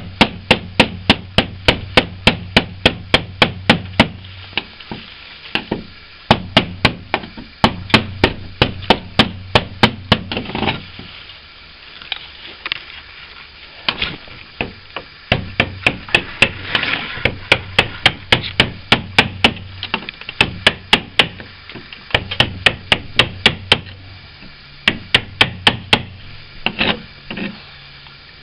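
Hammer blows striking a blade to chip out old, rock-hard window putty set in a timber frame, about four sharp knocks a second in runs of a few seconds with short pauses between.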